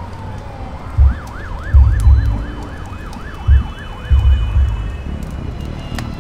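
A siren wailing in a fast up-and-down yelp about five times a second, after a single falling tone, over deep rumbling thumps that come and go. Faint crackling sits underneath, as from the fire burning in the pit.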